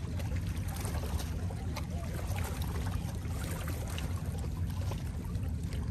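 Seawater lapping and splashing against the shore, many small irregular splashes over a steady low rumble.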